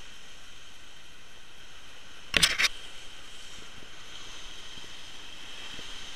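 Steady hiss of surf breaking on the rocks below, with one short, loud rattling knock about two and a half seconds in.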